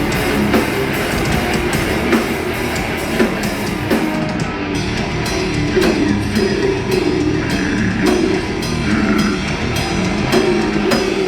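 Hardcore band playing loud, heavy music: a drum kit with sharp, regular hits over distorted electric guitars.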